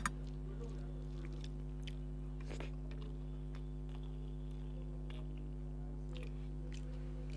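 Close-miked mouth sounds of a person chewing a meal of rice and fish curry eaten by hand: scattered small wet clicks and smacks over a steady low hum, with one sharp click right at the start.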